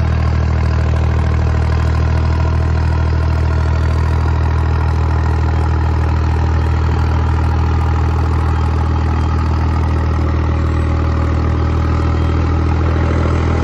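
Tractor's diesel engine running steadily at constant revs while pulling a harrow through ploughed soil.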